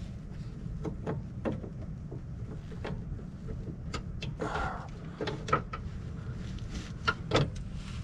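Hand fumbling with the headlight bulb and the plastic parts around it in a 2008 Chevy Silverado's engine bay: scattered light clicks and taps and a short scrape about halfway through, over a steady low rumble.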